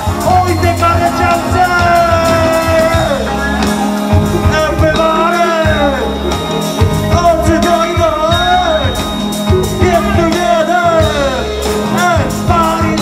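Live band playing a hip-hop track: bass guitar and drums under a vocal line of long notes that glide up and down.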